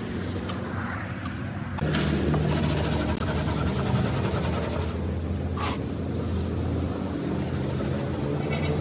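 Steady low hum of the workshop's drum mixing machine running, louder from about two seconds in, with the scrape and rattle of a scoop pouring red stone chips into a metal tile mould.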